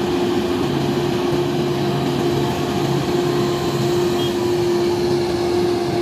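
Large multi-axle all-terrain mobile crane driving slowly, its diesel engine running steadily with a constant drone and a held, even whine.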